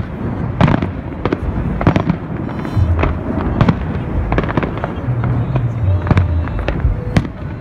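Fireworks display: aerial shells bursting overhead in an uneven, rapid run of sharp bangs, about two or three a second.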